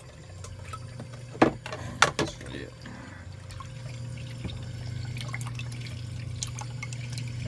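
Water trickling and splashing through a reef aquarium's sump plumbing, over a steady low hum. A few sharp knocks come about one and a half and two seconds in.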